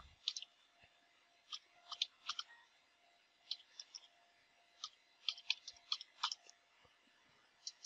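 Faint computer keyboard keystrokes: light clicks coming irregularly, in small clusters.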